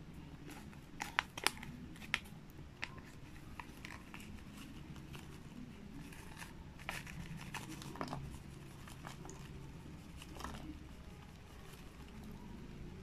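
Small plastic zip-lock bag of seasoning powder handled, opened and tipped: scattered crinkles and sharp clicks, loudest in the first three seconds, with powder sprinkled from the bag onto crisp fried seaweed near the end.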